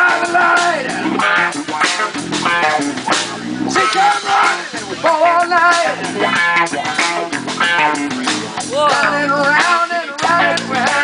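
Live band playing amplified rock: electric guitars and a drum kit, with a lead vocalist singing through the PA.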